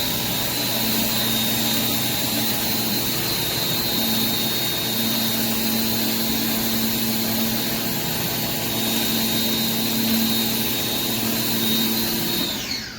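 Pressure washer running steadily with a high whine and the hiss of the spray through a 16-inch spinning surface cleaner. Near the end it shuts off and the whine falls away in pitch as it spins down.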